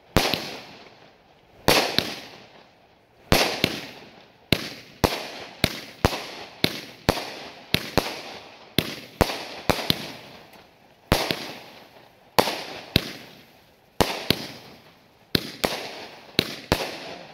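A 200-gram consumer fireworks cake firing its shots: a rapid, irregular string of sharp bangs, about two a second, each with a short fading tail, broken by a few brief lulls.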